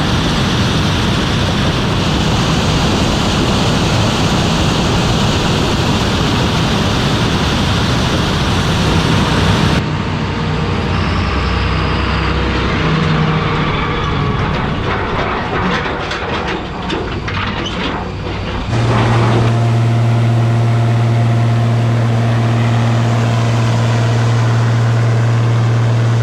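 Heavy farm machinery running: a dense engine-and-machine rumble that cuts abruptly twice, the last part a steady low engine hum with a clear pitch.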